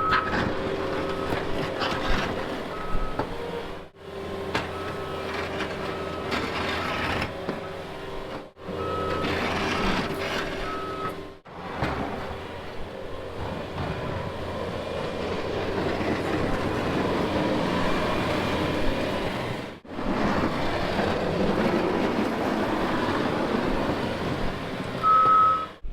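A reversing vehicle's backup alarm beeping about once a second over a running engine, in short stretches broken by edits. A middle stretch holds only engine noise without beeps.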